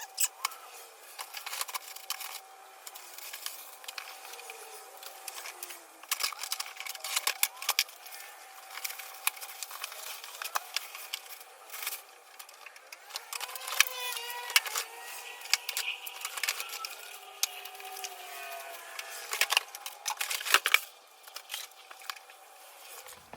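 Cardboard box and packing material being opened and handled: a steady run of sharp clicks, crackles and rustles.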